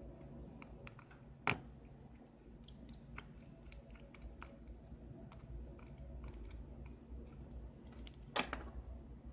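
Small clicks and taps of repair tools and tiny parts being handled on a phone's internal frame during disassembly, with two sharper, louder clicks about one and a half seconds in and near the end.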